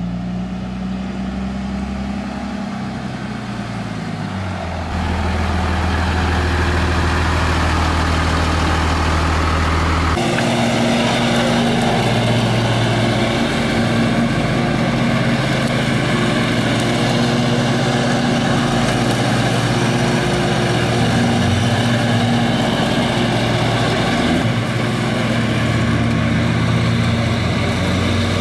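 A pickup truck's engine running close by during the first ten seconds or so, then a John Deere riding lawn mower's engine running steadily as it mows.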